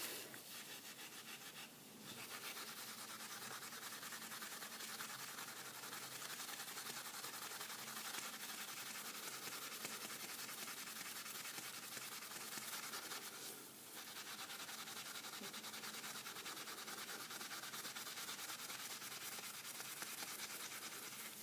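Fine 0000 steel wool rubbing back and forth over a brass padlock, a faint steady scratchy hiss, working off paint residue along the grain. The rubbing pauses briefly about two seconds in and again near fourteen seconds.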